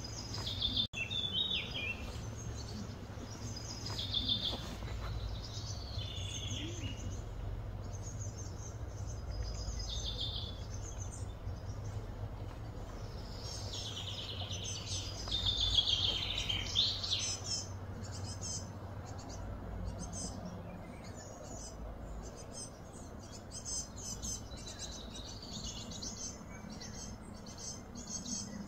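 Wild birds chirping and singing in short repeated phrases, over a steady low background hum.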